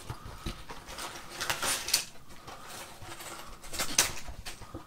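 A cardboard box flap being opened and plastic bags of small plastic building bricks rustling and clattering as they are pulled out onto a table: irregular crinkles and clicks, with sharper clatters about two seconds in and about four seconds in.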